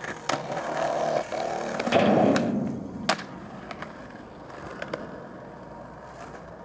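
Skateboard wheels rolling, a rough steady rush for about three seconds, with two sharp board clacks about two and a half and three seconds in; then only a faint background noise.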